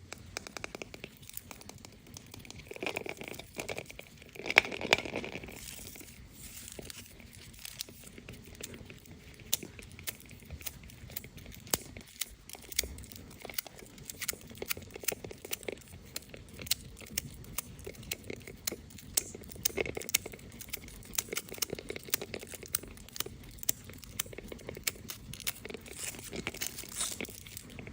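Crinkling and tearing of the foil wrappers on Kinder Surprise chocolate eggs as they are unwrapped by hand. It is a steady stream of small sharp crackles, with louder tearing about three and five seconds in.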